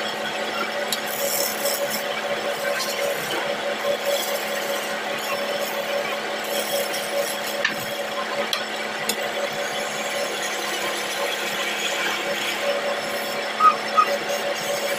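Wood lathe running with a steady hum while a hand-held chisel scrapes and cuts the spinning wooden bed leg, a continuous rasping scrape. Two short squeaks near the end.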